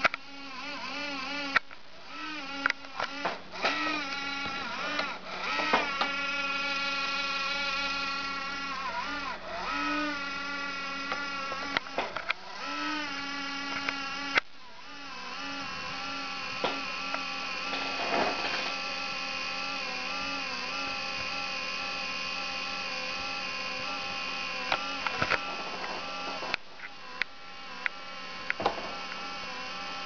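Acer laptop's cooling fan making a buzzing whine with many overtones that wavers up and down in pitch, broken by scattered clicks, settling into a steadier tone about halfway through. The owner takes it for a fan that needs cleaning, not the hard drive.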